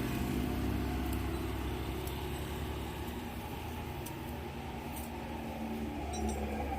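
An engine running at a steady low idle, a continuous low rumble.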